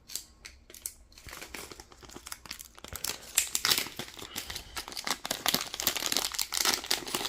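Plastic packaging crinkling and rustling as it is handled, sparse at first and getting busier and louder from about three seconds in.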